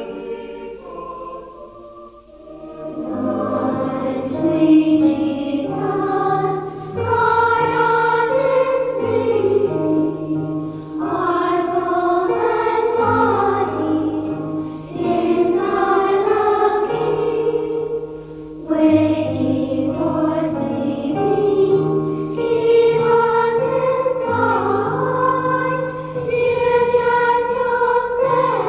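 Choir singing sacred choral music over sustained low notes, in long phrases with a short break about two seconds in and another near eighteen and a half seconds.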